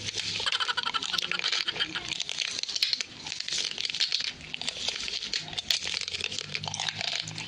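Dense crackling and crinkling noise made of many rapid small clicks, running without a break.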